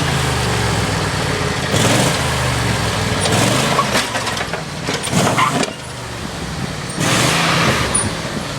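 Riding lawnmower's small engine running, its pitch rising and falling as it works, with several bursts of rushing noise; it drops back about six seconds in and picks up again a second later.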